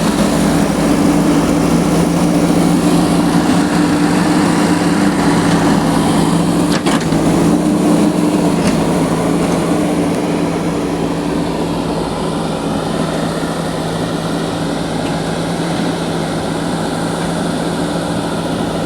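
Engine of road-construction machinery running steadily, with a single sharp knock about seven seconds in. One of its tones drops out shortly after, and it runs a little quieter from about ten seconds in.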